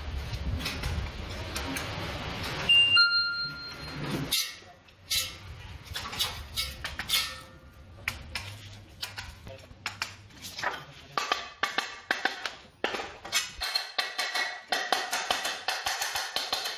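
A low rumble for the first four seconds, a short ringing ping about three seconds in, then many irregular sharp taps and metallic clinks of hand work.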